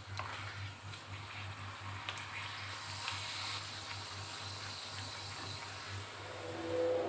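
A wheat-flour pakwan deep-frying in hot oil in a frying pan, giving a steady sizzle, with a few light taps of a wooden spatula against the pan. A short pitched sound comes in near the end.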